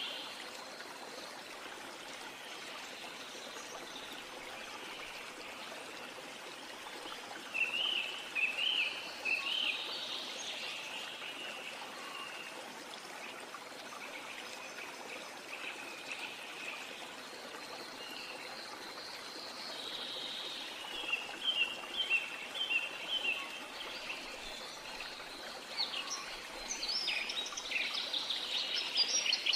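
Birds chirping in short bursts and quick series of notes over a steady outdoor hiss, twice: about a third of the way in, and again from about two-thirds of the way to the end.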